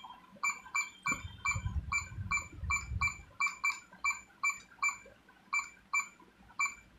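Ajanta ODC-120 digital wall clock giving a short electronic beep for each press of its up button, about three beeps a second, each beep stepping the minute display forward while the time is set.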